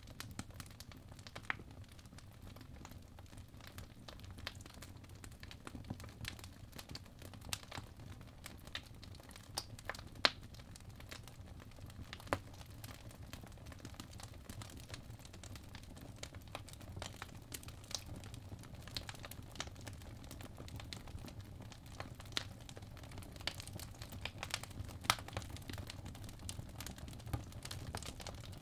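Crackling fireplace ambience: irregular pops and crackles scattered throughout over a steady low rumble.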